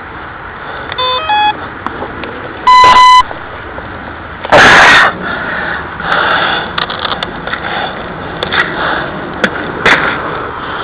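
Electronic beeps from radio-control gear on a foam RC jet: a quick run of short tones at different pitches, then one loud, steady beep about half a second long. A loud half-second rush of noise follows a couple of seconds later.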